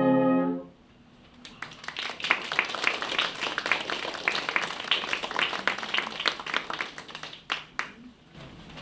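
A brass sextet holds the final chord of a piece, which cuts off just under a second in; then a small audience claps for several seconds, thinning out near the end.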